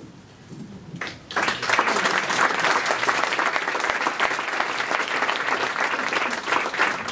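Audience applauding: a roomful of people clapping, starting about a second in after a brief lull and going on steadily.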